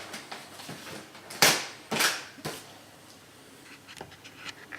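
Cardboard box packaging being opened by hand: rustling and handling, with two sharp tearing sounds about a second and a half and two seconds in.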